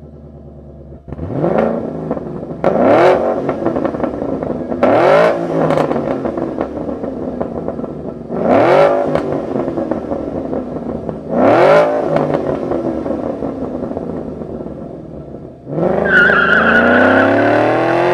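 Mustang GT's 5.0 V8 through a Borla Touring exhaust, revving up hard five times and dropping back each time, with a deep note. Near the end the sound jumps suddenly louder with a high steady tone over it.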